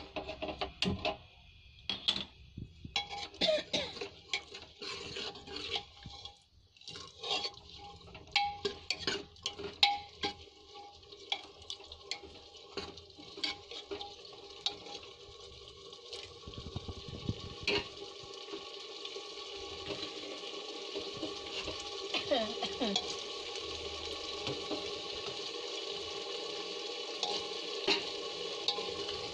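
Metal ladle stirring boiled black chickpeas into masala in a metal pot: irregular clatter and scraping of the ladle against the pot for the first half, giving way to a steady sizzle of the chickpeas frying in the masala that grows louder in the second half.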